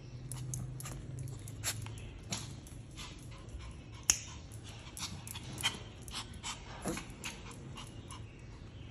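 Small white Pomeranian's claws clicking on a hard tiled floor as it trots about, with a sharp click about four seconds in. The dog pants and gives one short whine a little before the end.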